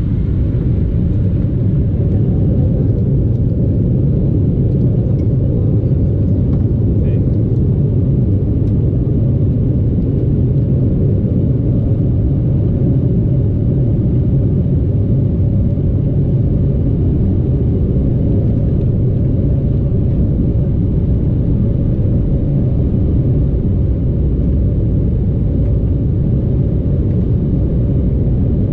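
Steady low rumble inside the cabin of an Embraer 175 taxiing slowly along the runway, its two GE CF34 turbofans at low power.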